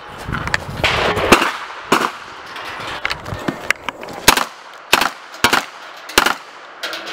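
A string of about ten single gunshots, fired one at a time at an uneven pace with a pause of over a second in the middle, as a shooter works through a stage of targets.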